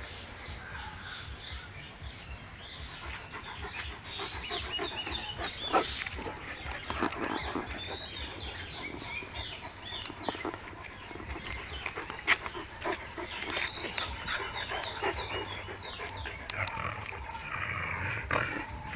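Dogs at play, with a string of short, high, wavering yelps and whines and a few sharp clicks, busiest through the middle and again near the end.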